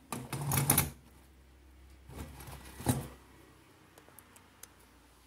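Handling noise at a workbench: clicks and rustles of hands moving a circuit board and multimeter test leads. A cluster of them comes in the first second and another around two to three seconds in, ending in a sharp click, with faint ticks after.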